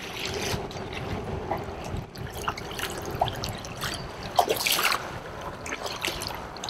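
Water splashing and trickling as a hooked redfish thrashes at the surface beside a kayak, with a louder splash about four and a half seconds in.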